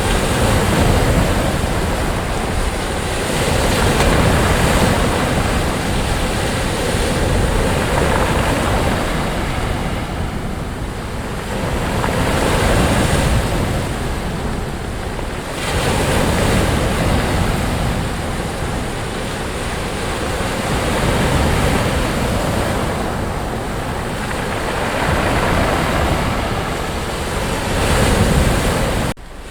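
Ocean waves washing up on a sandy beach, the surf swelling and falling back every three to four seconds. The sound drops out abruptly for a moment near the end.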